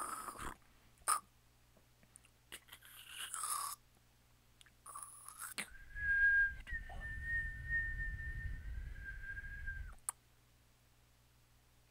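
Contemporary-music mouth sounds: a few sharp tongue or lip clicks and short breathy hisses, then a steady whistled tone held for about four seconds. The tone steps slightly higher partway through over a low rumble, then cuts off suddenly, followed by a single click.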